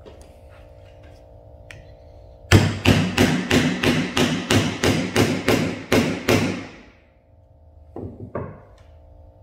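Hammer blows on a screwdriver, driving it through the old lithium battery pouch of a Stratus ADS-B receiver: a rapid run of sharp strikes, about four a second, for some four seconds, then two lighter knocks near the end.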